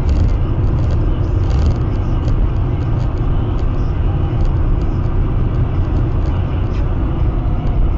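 Steady engine and tyre noise of a car cruising at about 80 km/h, heard from a dashcam inside the cabin, with scattered light clicks.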